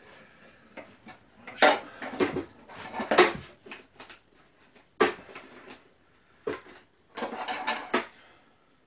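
Metal clinks and clatters of hand tools and handlebar parts being handled on a motorcycle: a run of knocks, then two single knocks, then a longer rattle near the end.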